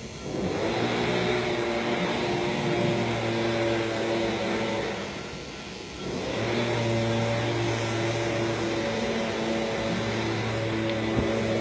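Electric horse clippers running with a steady motor hum as they clip a horse's coat. The hum fades about five seconds in and comes back strongly about a second later.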